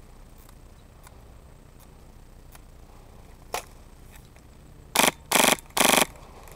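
Three short bursts of rapid fire from a Polarstar-powered airsoft M4, each about a fifth of a second long, coming in quick succession about five seconds in. A single sharp click sounds about a second and a half before them.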